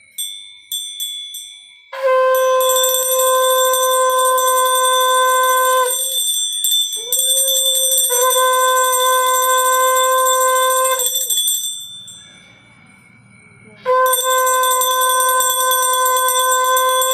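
Conch shell (shankha) blown in three long, steady blasts of about four seconds each, the first starting about two seconds in and the last still sounding at the end. A small hand bell rings with quick strikes just before the first blast and keeps ringing faintly beneath the blasts.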